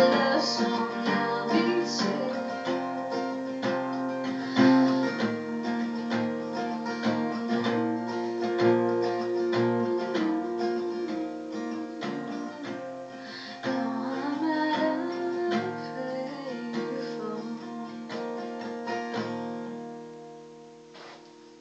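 Acoustic guitar playing out the song's closing chords, the notes ringing on and gradually fading away near the end.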